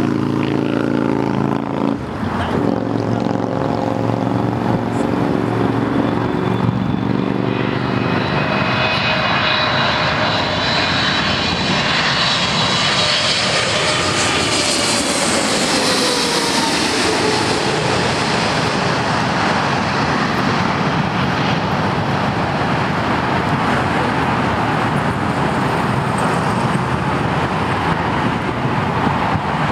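Boeing 777-300ER's GE90 turbofans passing low overhead on final approach: a roar with a high engine whine builds to a peak about halfway through, the whine falls in pitch as the jet goes by, and it settles into a steady rumble.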